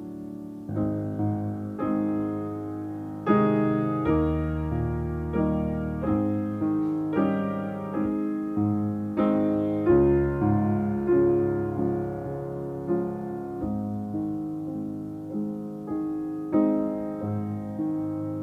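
Slow solo piano music, notes and chords struck about once a second, each ringing and fading before the next.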